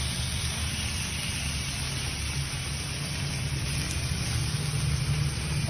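Meat and onion rings sizzling steadily on a grill pan over a portable gas stove, with a steady low rumble underneath.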